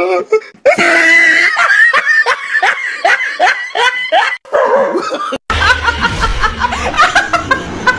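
Hearty laughter in quick repeated bursts. After a sudden cut about five and a half seconds in, a woman laughs loudly over a low rumble.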